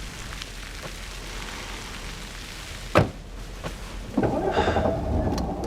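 Rain falling with scattered drips and one sharp crack of thunder about three seconds in. About a second later a louder, muffled rumble takes over.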